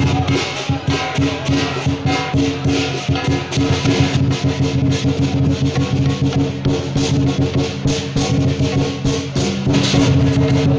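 Music with a quick, steady percussive beat over held low notes.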